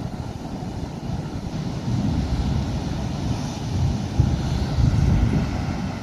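Wind buffeting the phone's microphone in a gusty low rumble that swells about two seconds in, with surf breaking on the rocks beneath.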